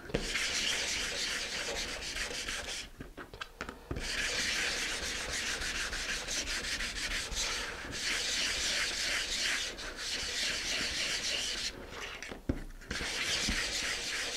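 Fine-grit sandpaper rubbed by hand in small circular strokes along a thin wooden model-rocket fuselage boom, smoothing its surface: a steady scratchy hiss that stops briefly about three seconds in and again about twelve seconds in.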